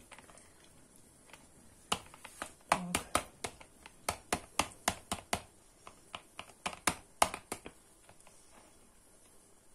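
Metal ladle tapping and clinking against a plastic funnel and glass jar as fried eggplant pieces are pressed down into the jar. A run of sharp taps, a few a second, starts about two seconds in and stops near the end.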